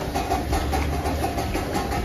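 A steady, low motor-like hum with a faint steady whine over it.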